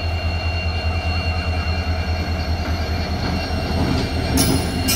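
Indian Railways WDP-4-series EMD diesel locomotive passing close at slow speed, its engine giving a deep, even throb with a couple of thin steady high tones above it. About four seconds in, a hissing rush of wheel and rail noise rises as the locomotive draws level.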